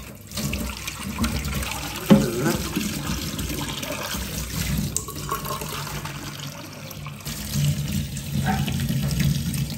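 Kitchen tap running into a small stainless-steel pot held in a stainless-steel sink, water splashing as the pot fills. There is a single sharp knock about two seconds in.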